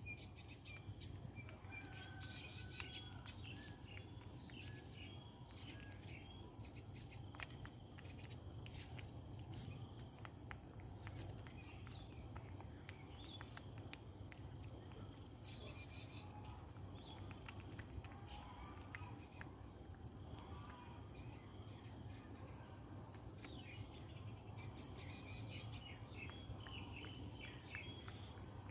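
Faint insect chirping: a high-pitched trill repeating in even pulses about once a second, with scattered faint clicks.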